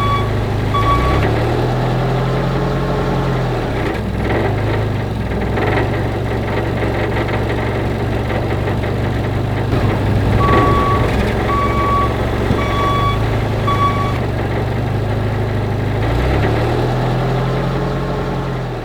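Truck engine running with its pitch shifting up and down, and a reversing alarm beeping: a couple of beeps at the start, then four more about a second apart in the middle.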